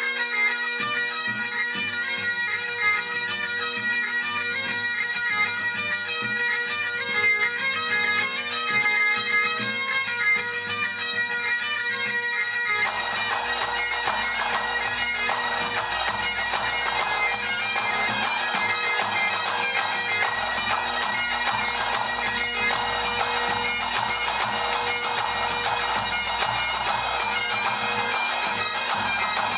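Great Highland bagpipes played by a small pipe band, several pipers sounding a tune together over the steady drones. A little under halfway through, the sound suddenly becomes fuller and denser.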